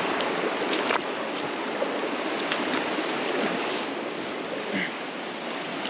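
Steady rushing of a fast-flowing river over rocks, with a few faint clicks.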